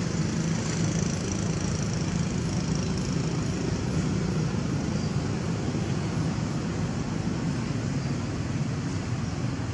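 Steady low background rumble of the open air, with a faint high hiss in the first few seconds and no distinct events.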